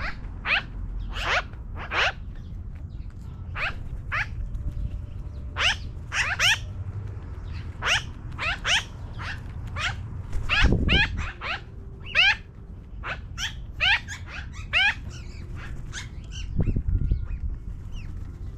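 Magpies calling, a long run of short, sharp chattering calls, many in quick succession throughout. A low rumble swells twice beneath them, a little past halfway and near the end.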